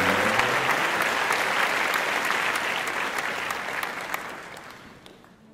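Audience applause, many hands clapping, fading away gradually over about five seconds.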